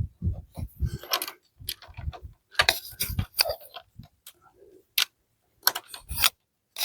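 Irregular small clicks, taps and light rattles of hands working a nut free along the wiring of a front turn-signal light, with a few dull knocks.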